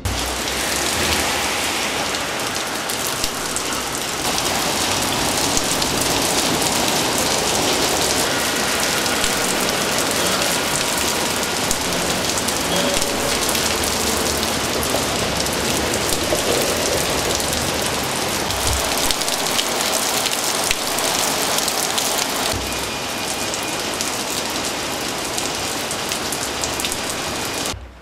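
Heavy rain pouring down in a steady hiss, drumming on pavement, parked cars and roofs.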